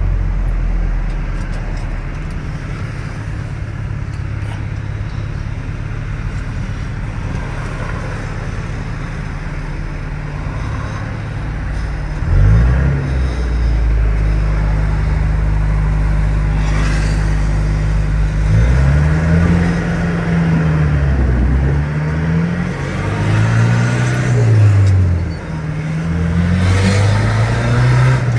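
Turbocharged four-cylinder engine of a 1997 Ford F-150 pickup, heard from inside the cab while driving. It holds a steady cruise, revs up briefly about twelve seconds in, then from about halfway on rises and falls in pitch again and again as it accelerates through the gears.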